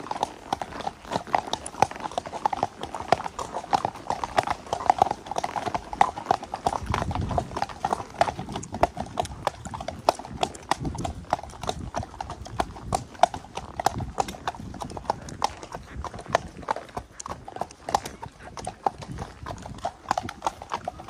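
Several horses' hooves clip-clopping on a tarmac road at a walk, their steps overlapping into a continuous, irregular clatter.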